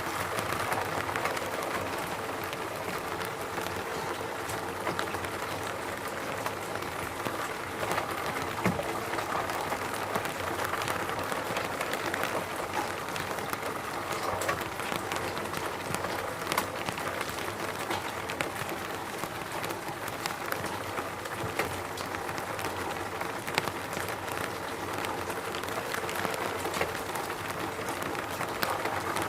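Steady rain falling in a forest, a dense even hiss with many individual drops striking close by.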